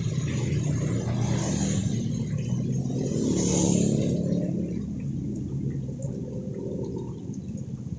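A motor vehicle passing, its low engine rumble swelling to a peak about halfway through and then fading, over a steady hiss.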